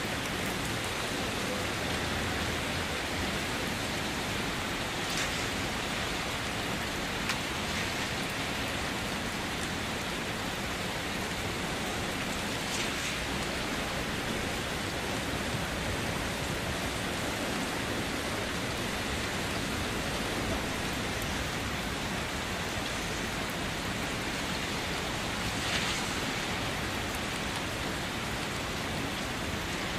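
Steady rain falling, an even hiss that holds its level throughout, with a few brief louder moments spread through it.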